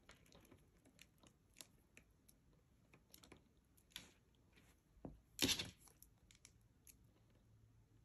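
Faint handling noises of beads and fine beading wire being worked by hand: scattered small clicks and ticks, with a louder rustle about five and a half seconds in.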